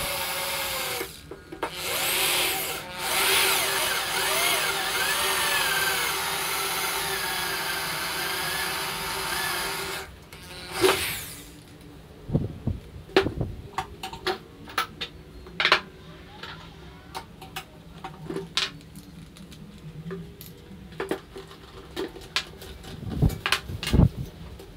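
Corded electric drill boring into a metal part clamped in a bench vise. It runs steadily for about ten seconds, with two brief stops near the start, and its pitch wavers as the bit cuts. A short run follows about a second later, then scattered clicks and knocks of tools being handled on a wooden workbench.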